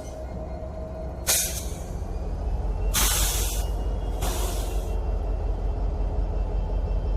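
Train sound effect: a standing train's low steady rumble with bursts of air hiss, one short about a second in, then two longer ones a little later.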